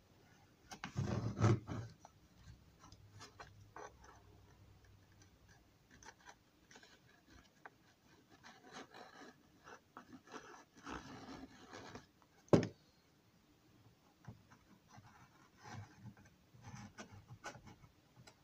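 Handling noises from a model engine house being turned and worked on by hand: light rubbing and scraping, a louder rustle about a second in, and one sharp click a little past the middle.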